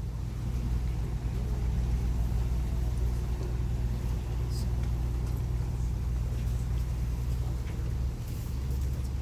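Low, steady drone of the Island Queen cruise boat's engines heard on board while under way; its low note shifts slightly near the end.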